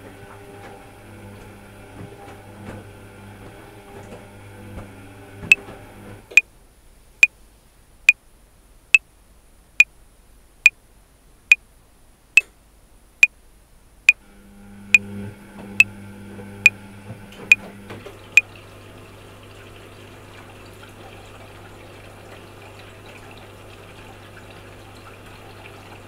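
A top-loading washing machine runs on a cotton cycle, with water sounds over a steady motor hum. A few seconds in, the machine sound drops away and a metronome clicks sixteen times at 70 beats a minute, four bars of 4/4. The washing machine's hum returns partway through the clicks and runs on steadily after they stop.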